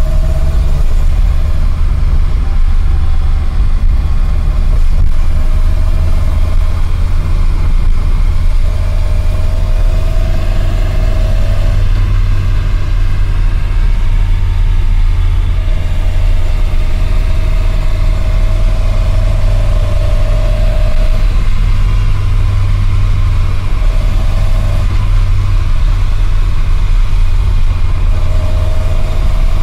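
Datsun Bluebird 510's four-cylinder engine running steadily with a strong low rumble. A mid-pitched whine comes and goes several times.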